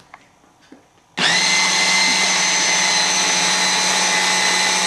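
Food processor motor starting about a second in and then running at a steady pitch, blending the cake batter of eggs and flour.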